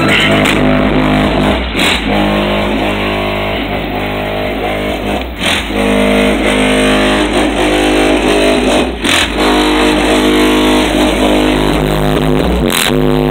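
Loud bass music played through the aftermarket subwoofer system in a Buick Roadmaster's trunk, heard from outside the car and distorted. Deep sustained bass notes change every few seconds, with a short hit each time the notes change.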